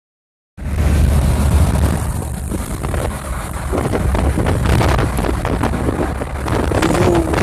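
Road and engine noise of a moving vehicle heard from inside, a steady deep rumble with wind buffeting the microphone, starting about half a second in.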